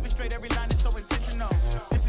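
Hip hop backing track with rapped vocals over a beat of deep bass drum hits that drop sharply in pitch, about two a second.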